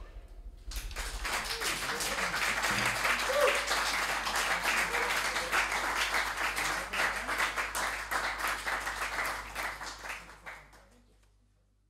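Small audience applauding, the clapping starting about a second in, holding steady and then dying away near the end.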